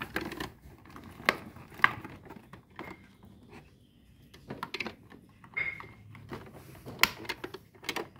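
Plastic toy pieces and packaging being handled: scattered light clicks and taps, with a few sharper clicks about a second in, near two seconds, and again near the end.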